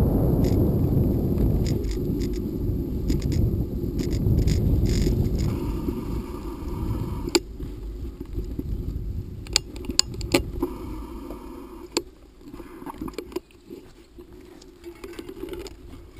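Bicycle riding over a rough, rutted dirt road: wind rumbles on the microphone, easing off about halfway as the ride slows. Sharp clicks and rattles from the bike and camera mount jolting over bumps take over in the second half.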